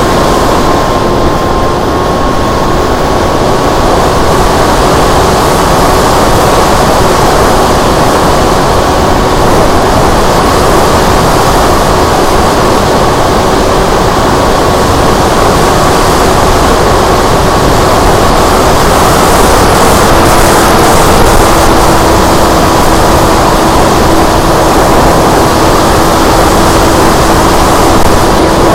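Electric motor and pusher propeller of a Multiplex FunJet Ultra RC model plane whining steadily in flight, heard from its onboard camera under heavy wind rush. The whine steps slightly lower in pitch about twenty seconds in, a throttle change.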